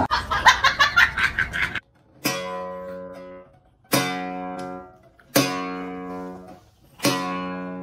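Strings of an acoustic guitar strummed four times by a cat rubbing its face against them, each chord ringing out and fading before the next. A quick run of clicks comes first, lasting under two seconds.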